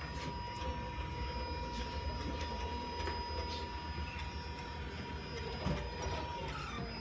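2013 Stannah stairlift carriage travelling along its rail, the drive motor running with a low rumble and a thin steady whine that dies away about six and a half seconds in as the lift comes to a stop.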